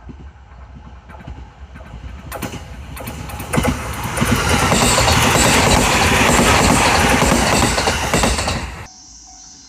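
JR East 209 series electric train passing close by at speed, its wheels clattering over the rail joints. The noise builds over the first few seconds, stays loud for about five seconds, then cuts off suddenly near the end.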